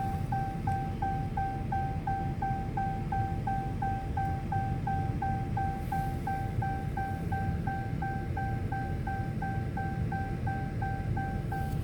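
An electronic beeper repeating one high tone about three times a second, steady and unchanging, over a low rumble.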